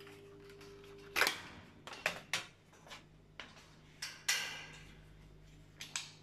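Magnetic ballast of a 1973 Mesko street lamp humming steadily, cut off by a loud sharp click about a second in as the lamp is switched off. A string of irregular clicks and knocks follows.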